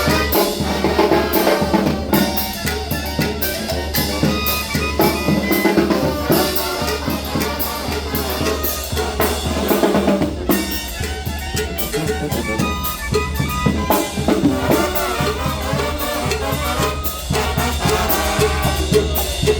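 Mexican banda music: a brass band with trumpets and trombones over drums and a steady low bass line, playing continuously.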